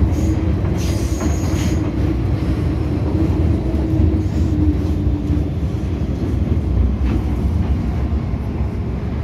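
MTR M-Train heard from inside the car, running with a steady heavy rumble as it pulls into a station. A brief high-pitched squeal comes about a second in, and a steady hum fades out about halfway through.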